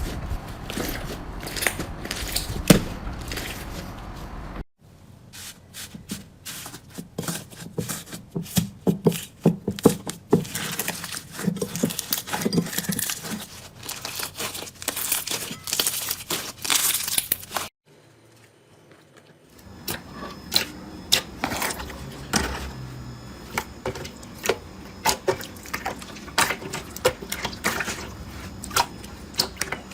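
Hands squeezing and stretching slime, a close-up run of crackling, popping and sticky clicking. It comes in several short takes, with a pause of about two seconds past the middle.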